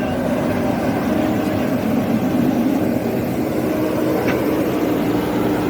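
An engine running steadily at constant speed.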